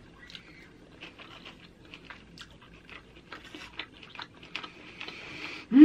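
Close-up chewing and mouth sounds of someone eating a pork chop: soft wet smacks and clicks, several a second. Right at the end a loud burp begins.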